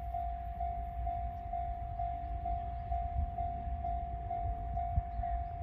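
Japanese railway level-crossing alarm ringing its electronic warning tone, one pitch repeated evenly about twice a second, over the low rumble of a passing train.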